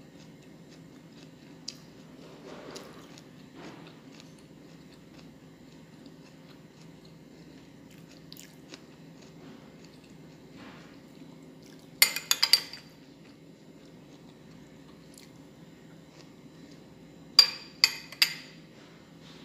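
A metal spoon clinking against a glass bowl of sweet corn: a quick cluster of clinks near the middle and three more near the end, over a steady low hum.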